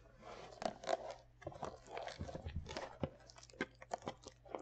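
Plastic shrink-wrap on a sealed trading-card hobby box crinkling as gloved hands turn and handle the box, in a run of irregular crackles.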